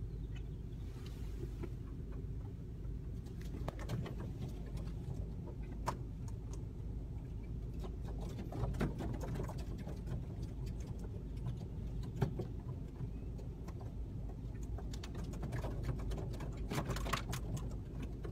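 Scattered sharp clacks and squeaky calls from a huge flock of grackles, heard from inside a car over a steady low hum. The calls come thickest in two spells, a little before the middle and again near the end.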